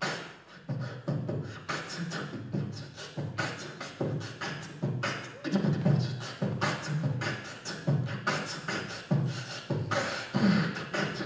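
Beatboxing into a handheld microphone: a steady beat of vocal kick-drum thumps and snare and hi-hat clicks.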